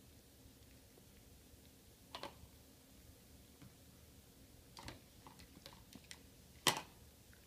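Hard plastic toy stacking rings clacking as a dog picks them up in her mouth and drops them onto a plastic ring-stacking cone: a soft clack about two seconds in, a run of small clicks around five seconds in, and the loudest clack near the end.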